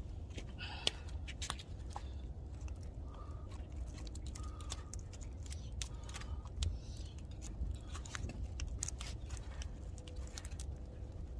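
Wood fire crackling, with irregular sharp pops and snaps over a low steady rumble.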